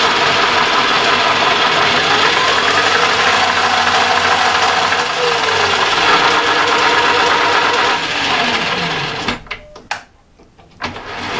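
EMCO metal lathe running under its VFD-driven motor on a test run: a steady mechanical running sound of motor and headstock. About eight seconds in it winds down with falling pitch and stops. It starts up again near the end.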